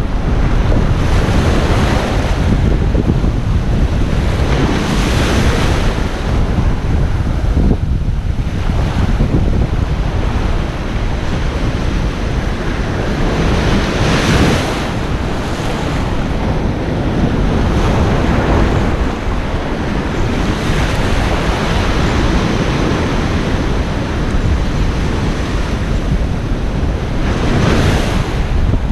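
Ocean surf breaking and washing up a beach in swells every few seconds, with wind rumbling on the microphone.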